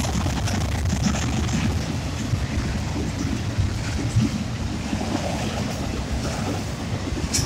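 Union Pacific freight train's cars rolling past at a grade crossing: a steady low rumble with a few sharp clicks, one just before the end.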